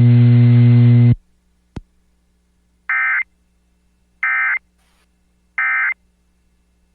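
A loud low buzz on the broadcast audio cuts off about a second in. Then three short, identical bursts of the Emergency Alert System's end-of-message digital data tones sound about a second and a half apart, marking the end of the alert.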